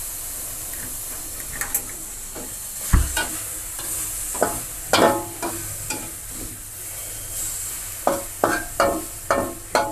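Genjer stir-fry sizzling in a wok while a metal spatula scrapes and clinks against the pan, with a dull thump about three seconds in and a quick run of clinks near the end. The pan is frying dry enough that its bottom has scorched a little.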